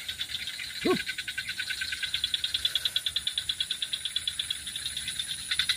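Insect calling in a rapid, steady pulsed trill of about ten pulses a second, with a brief single call about a second in.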